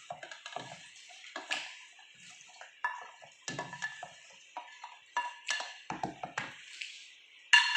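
A spoon clinking and scraping in a bowl as chopped vegetables are added and stirred: a string of irregular knocks with short ringing tones, the loudest a sharp clink near the end.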